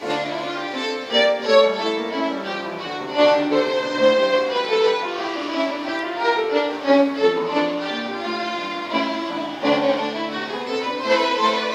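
A small group of violins playing a tune together, the music starting all at once.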